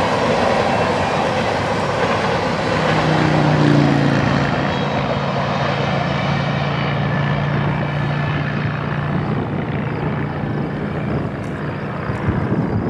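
Rolling noise of a freight train's covered hopper cars on the rails as the end of the train passes and pulls away, the higher part of the noise fading. A steady low hum comes in about two and a half seconds in.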